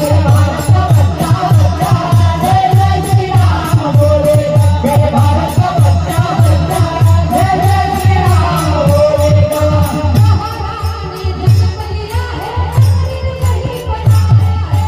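Women singing a devotional bhajan over a steady drum beat, with small hand cymbals clicking in time. The sung line grows fainter after about ten seconds while the drum and cymbals keep going.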